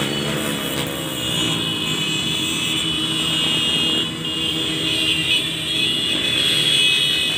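Many motorcycles riding past in a convoy, their engines running together in a steady, overlapping drone.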